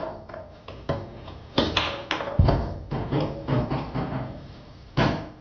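Tornado foosball table in fast play: irregular sharp clacks of the men striking the ball and the ball knocking off the table walls and rods, with a last loud knock about five seconds in.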